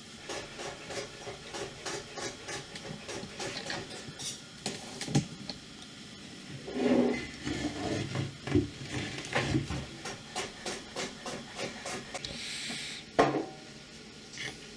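Hands handling and taking apart 3D-printed plastic suspension parts and a metal bicycle disc brake rotor on a table: repeated small clicks, clinks and rubbing, with one sharp knock about thirteen seconds in.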